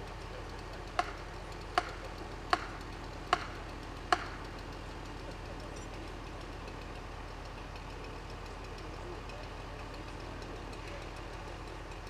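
Crane truck's engine idling steadily, with five sharp knocks in an even rhythm a little under a second apart, starting about a second in.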